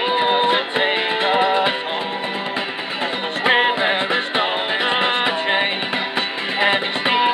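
Live folk song: male voices singing to a strummed acoustic guitar, with a rope-tensioned drum struck with sticks keeping the beat.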